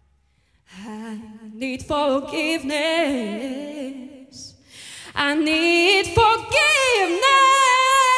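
A woman singing solo, unaccompanied, into a microphone, with a wide vibrato. She sings two phrases, the second ending on a long held note.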